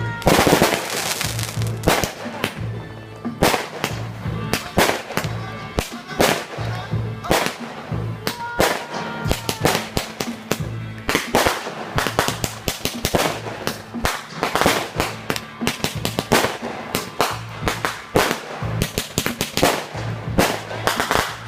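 Fireworks going off in quick succession: a dense string of sharp bangs and crackles, with music with a beat playing underneath.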